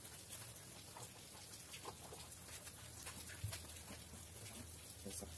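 Faint background noise: a low steady hum with scattered light ticks and one soft knock about three and a half seconds in.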